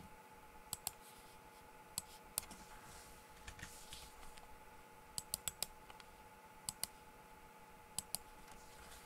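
Computer mouse and keyboard clicks, a dozen or so sharp taps, many in quick pairs like double-clicks, over a faint steady electronic whine from the computer.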